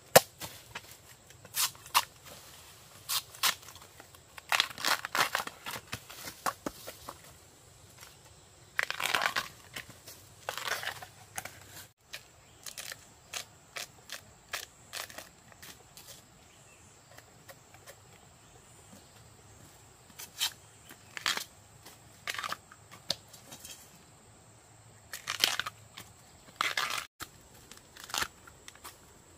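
Irregular crunching and tearing sounds in scattered clusters of short, sharp crackles, with quieter gaps between them.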